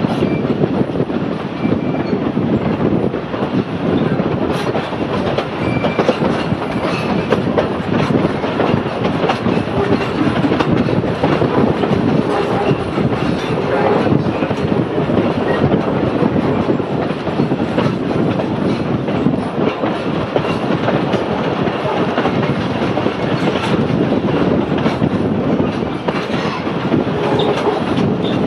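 Narrow-gauge heritage passenger carriage heard from on board while the train is moving: a steady running rumble and rattle, with the wheels clicking over rail joints.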